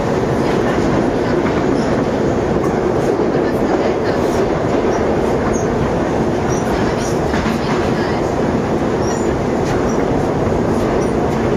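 Steady rumble of a Moscow Metro 81-775/776/777 "Moskva-2020" train running at speed, heard from inside the car: wheels on rails with a dense low roar that holds an even level throughout.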